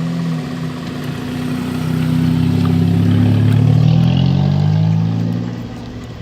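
Modified Ford Ikon's engine running through a loud aftermarket exhaust, swelling into a slow, gentle rev about two seconds in and easing back down near the end.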